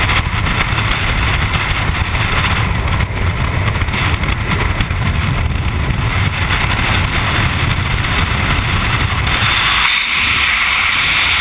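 Freefall wind rushing loudly and steadily over a skydiver's camera microphone. About ten seconds in the low rumble drops away, leaving a higher hiss as the camera turns.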